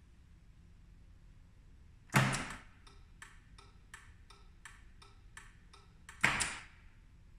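Relay control board switching: a sharp clack as a push-button is pressed and the relay pulls in, then light regular ticking about three times a second from the flicker relay. A second clack about six seconds in as the red stop button is pressed, after which the ticking stops.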